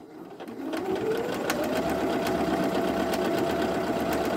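Viking Jade 20 sewing machine starting up and stitching a decorative heart stitch. Its motor whine rises in pitch over the first second and a half, then runs steady with regular ticks from the needle mechanism.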